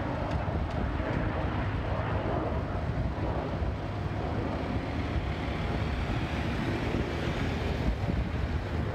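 Steady rushing, rumbling noise of a landing propeller airplane mixed with wind on the microphone. A faint propeller hum fades out in the first few seconds, and the hiss grows a little near the end.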